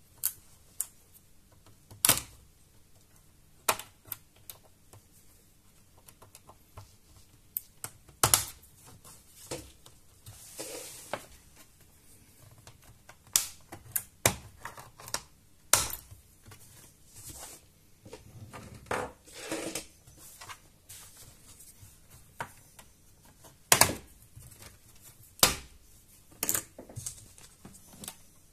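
Plastic snap clips of an Acer Aspire 3 A315 laptop's bottom case clicking loose one after another as the case is pried open with a thin pry tool. Irregular sharp clicks and snaps with light scraping and handling between them.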